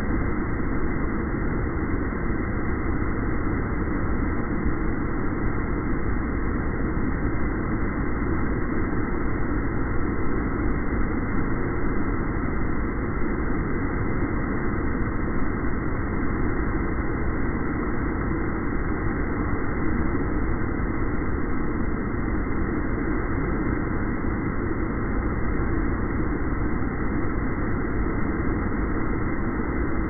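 Water from a concrete fountain pouring out of square outlets into its pool and splashing: a steady, deep, muffled rushing with no breaks.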